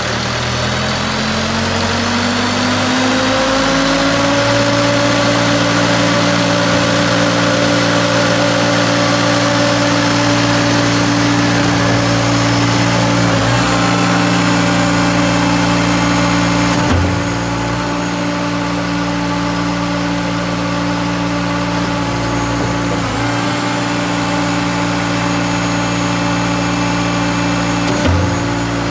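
Cummins diesel engine of a REED concrete pump revving up to full RPM over the first few seconds, then held at high speed under load while the hydraulic cylinders are deadheaded at the end of stroke to neutralize the slave oil loop. A few sharp knocks come through it as the cylinders shift stroke. After one knock partway through it runs a little quieter, and another knock comes near the end.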